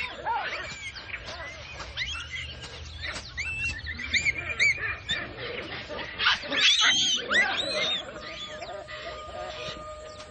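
A baboon troop screaming and chattering: many overlapping high, arching calls, loudest about six to eight seconds in. A held musical note comes in near the end.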